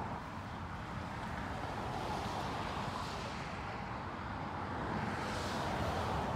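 Outdoor traffic noise: a steady rumble with cars passing on the road, their tyre noise swelling and fading about three seconds in and again near the end.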